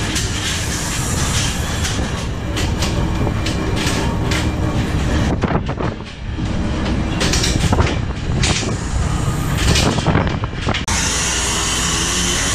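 Fishing trawler's diesel engine droning steadily while wind and a rough sea rush past the open deck, with frequent knocks and rattles of gear and hull.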